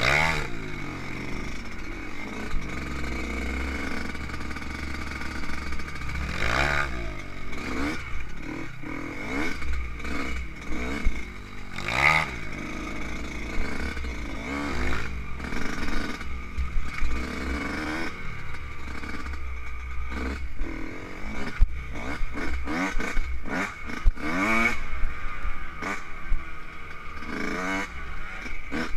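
Yamaha YZ125 two-stroke single-cylinder dirt bike engine revving up and down repeatedly while being ridden over a rough dirt track. Frequent knocks and rattles are heard over the bumps.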